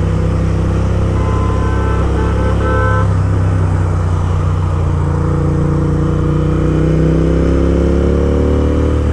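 Royal Enfield Interceptor 650's parallel-twin engine running through loud aftermarket Gursewak exhausts while riding, the engine note climbing steadily from about halfway through as the bike accelerates. A few short high beeps sound about one to three seconds in.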